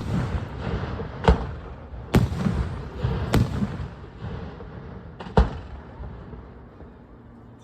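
Aerial firework shells bursting: five sharp bangs over about five seconds, each followed by a rolling rumble and crackle, fading out toward the end.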